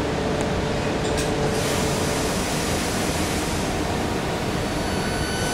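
Electric multiple unit train standing at the platform, its equipment giving a steady hum and hiss. A faint steady tone in it stops about two seconds in.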